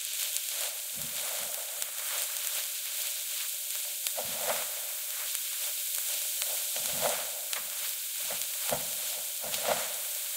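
Choux paste being stirred and pressed against a hot stainless steel saucepan with a silicone spatula while it cooks and dries out, the stage right after the flour goes in. There is a steady sizzling hiss, with soft thuds and scrapes at irregular moments as the dough is turned, more of them in the second half.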